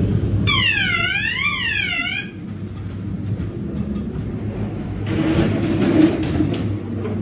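Ghost train ride car rumbling along its track. Near the start, a warbling effect sound wails up and down about two and a half times over roughly two seconds. About five seconds in there is a burst of noise and clatter as the car comes through the doors out of the ride.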